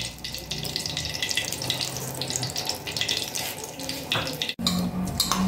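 Melted desi ghee sizzling and crackling in a metal pan, a steady fine spattering that cuts out for an instant about four and a half seconds in.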